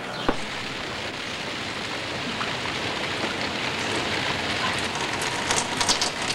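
Heavy rain falling as a steady hiss that grows a little louder, with one sharp knock just after the start and a few sharp clicks near the end.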